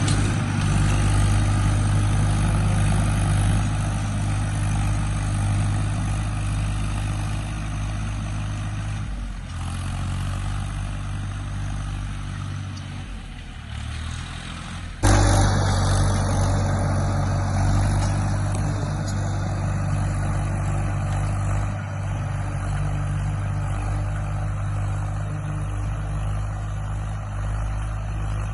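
Tractor's diesel engine running steadily while pulling a plough. The engine note drops and wavers about a third of the way through, then comes back suddenly louder at about the halfway point.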